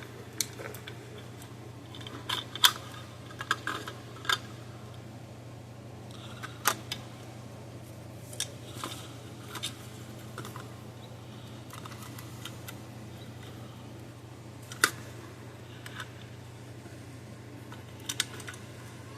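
Scattered light clicks and taps of a circuit board, wires and small parts being handled on a workbench, the sharpest about two and a half, six and a half and fifteen seconds in, over a steady low hum.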